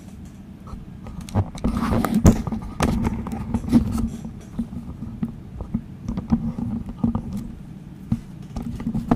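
Camera handling noise: irregular bumps, clicks and rubbing as the camera is picked up, turned around and repositioned by hand.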